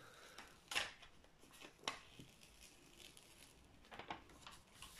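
Faint rustling and crinkling of the printed protective sheet on a diamond painting canvas as it is handled and smoothed by hand. There are a few short rustles, about a second in, near two seconds and again near the end.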